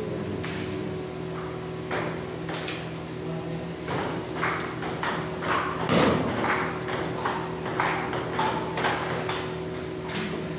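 Table tennis rallies: the ball clicking off paddles and table tops in quick, irregular succession, a few hits a second, from more than one table, over a steady low hum.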